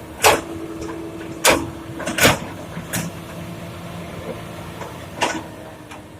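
Komatsu PC200 hydraulic excavator engine running steadily, with five sharp clanks of rock and steel, as from the bucket loading stone into a dump truck body.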